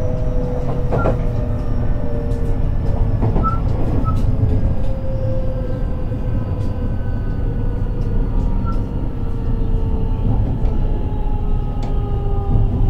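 Interior running sound of a JR West 223 series 2000-subseries electric multiple unit: a steady low rumble with the traction motors' whine, several tones falling slowly in pitch as the train slows. Scattered sharp clicks come from the wheels on the track.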